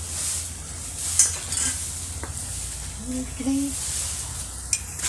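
Achappam batter frying in hot oil in a bronze uruli: a steady sizzle, with a few light clicks of metal on metal from the mould and vessel.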